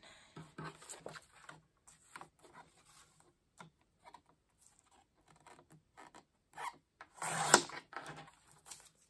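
Paper sliding and rustling on a plastic sliding paper trimmer with small clicks as the sheet is lined up. About seven seconds in comes one louder, short scrape as the trimmer's sliding blade is drawn along its rail through the sheet.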